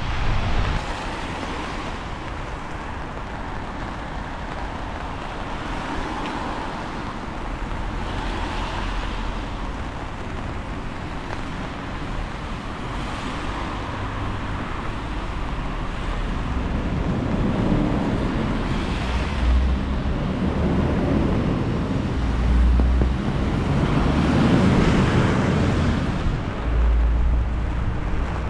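Road traffic on rain-wet streets: cars passing one after another, each swelling and fading with a tyre hiss. Gusts of wind rumble on the microphone several times in the second half.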